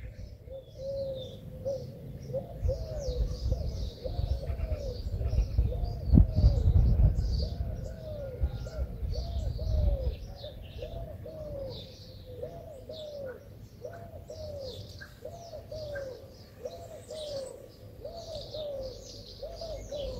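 Garden birdsong: one bird repeats a short, low call over and over, about one and a half times a second, while smaller birds chirp higher up. A low rumble swells about six to ten seconds in.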